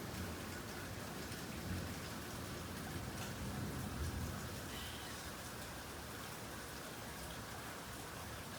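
Steady rain falling, with scattered drops ticking close by. A low rumble of thunder dies away during the first half.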